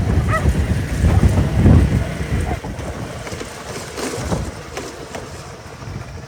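Wind buffeting the microphone, heaviest in the first two or three seconds and then easing, with a short high call near the start and a few faint clicks.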